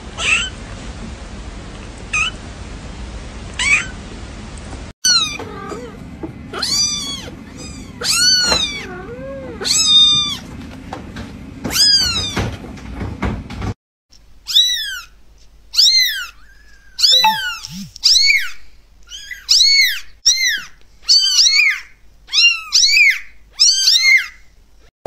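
Kittens meowing: high-pitched mews, each rising then falling in pitch, from several kittens in turn. A few spaced mews at first, then repeated crying, and from about halfway on a rapid run of mews one after another.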